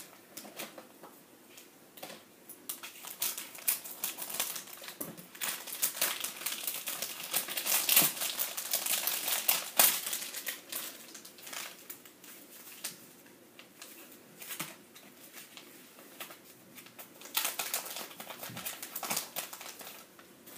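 Crinkling and rustling of small plastic and foil packets being handled, with many small clicks. It is busiest and loudest through the middle, with a few further bursts near the end.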